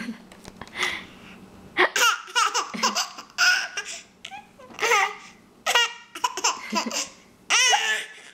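A 10-month-old baby boy laughing at his own hiccups: one hiccup right at the start, then repeated bursts of giggling laughter that run until near the end.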